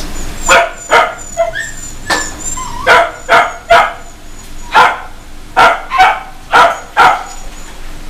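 A dog barking repeatedly, about a dozen short, sharp barks at an irregular pace, several coming in quick pairs.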